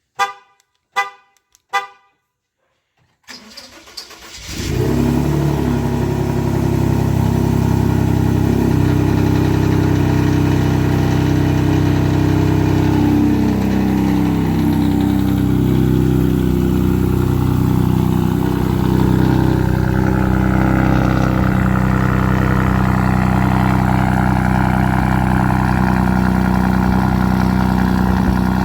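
Three short beeps, then a Ford 2.7-litre EcoBoost twin-turbo V6 with a Borla aftermarket exhaust is cranked from cold. It catches after about a second and settles into a loud, steady cold-start idle.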